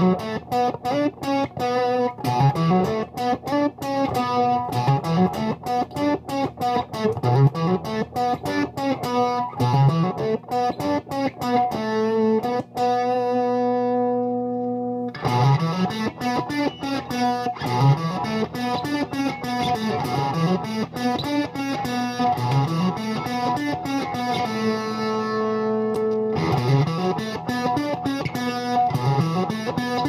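Electric guitar, a Jazzmaster with Seymour Duncan Quarter Pound pickups, played through the Infanem Driving Notion drive pedal into a Harmony 305a amp and a Hiwatt 2x12 cabinet. It plays a picked riff of repeating rising bass-string runs, pausing twice on a held ringing chord.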